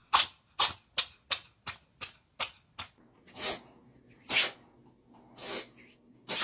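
A cat sneezing over and over: a fast run of about eight short, sharp sneezes, roughly three a second, then a few slower, longer sneezes.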